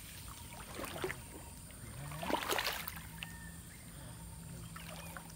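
Legs wading knee-deep through floodwater, sloshing and splashing with each stride; the loudest splash comes about two and a half seconds in.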